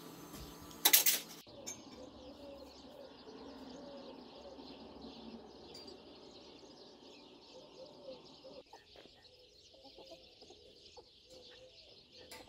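Birds calling: a steady high chirping chorus, with repeated short, low arching calls over it. A brief loud clatter comes about a second in.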